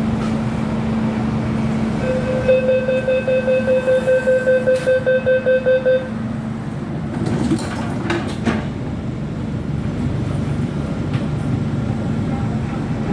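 MTR train door-closing warning: a rapid series of high beeps, about four a second for roughly four seconds, over the steady hum of the stopped train. About eight seconds in come a couple of sharp knocks as the doors shut, then the train's running noise.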